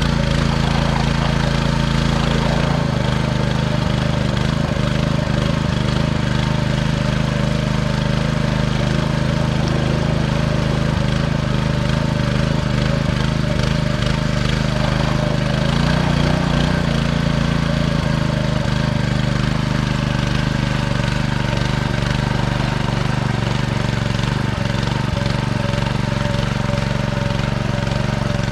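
Small engine running steadily, its note shifting slightly a few seconds in and again about halfway through.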